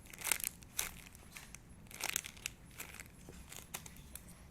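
Crinkling and rustling in short irregular bursts, like plastic packaging being handled, as a squishy toy is picked up and turned over.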